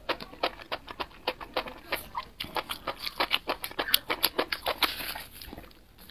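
Close-miked chewing of sauced barbecue skewer food: a quick run of wet smacking clicks, several a second, thinning out near the end.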